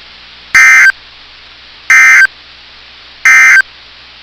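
Three short, loud bursts of NOAA Weather Radio SAME digital data tones, evenly spaced about a second and a third apart: the End of Message signal that closes an Emergency Alert System warning. A steady radio hiss runs between the bursts.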